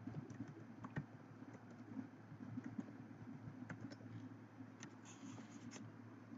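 Typing on a computer keyboard: faint, irregular key clicks, with a quick run of keystrokes about five seconds in, over a steady low hum.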